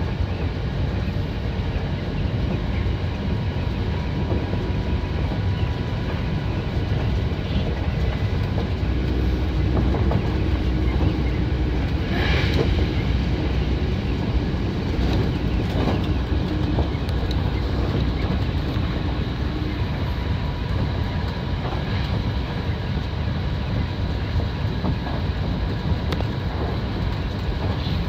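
Hankyu 7000 series electric commuter train running at speed, heard from inside the front car: a steady rumble of wheels on rail with rail-joint clatter. A short burst of brighter, hissing noise comes about twelve seconds in.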